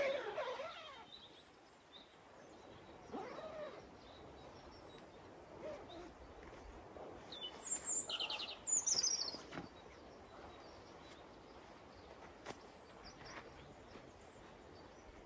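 Wild birds calling and chirping, with a brief run of high, rapid chirps and a trill about eight to nine seconds in. A few faint clicks and rustles from someone moving about inside a tent and climbing out.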